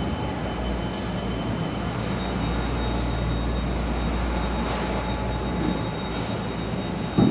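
Construction-site machinery noise: a steady low rumble with a faint, steady high whine above it.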